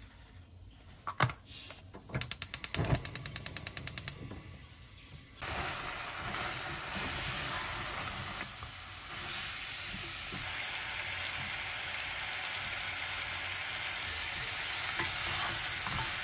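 Beef short ribs with seasoning sizzling as they are stir-fried in a pot with a wooden spatula, a steady hiss that starts suddenly about five seconds in. Before it, a fast run of clicks for about two seconds.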